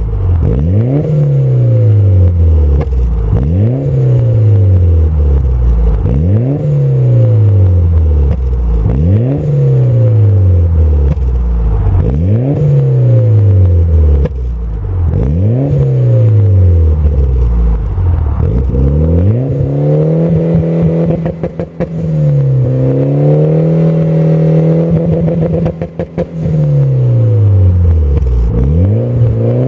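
Mitsubishi Lancer Evolution VIII's turbocharged 4G63 four-cylinder through an HKS exhaust, revved over and over, its pitch climbing and falling about every two seconds. Later the revs are held steadier, with short bursts of crackling pops from the exhaust, before another rise and fall near the end.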